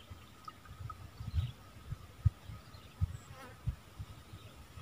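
Gusts of wind buffeting the microphone in irregular low thumps, over a faint steady whine.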